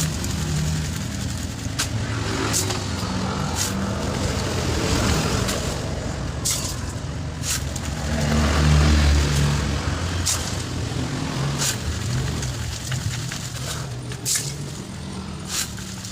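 A vehicle engine running, its hum shifting in pitch and swelling louder about eight seconds in, with scattered sharp clicks or knocks.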